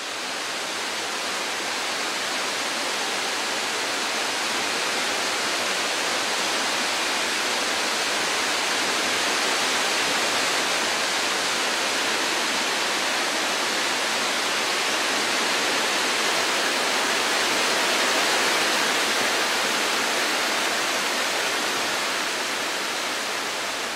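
Waterfall: water pouring down a rock face into a pool, a steady, even rush.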